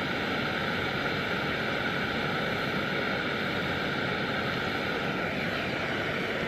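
Jetboil canister stove burner running, a steady loud hiss of burning gas.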